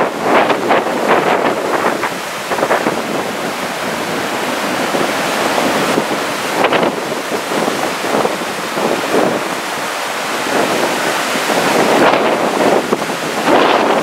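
Strong, gusty wind buffeting the microphone, with the wash of choppy sea and breaking surf beneath it.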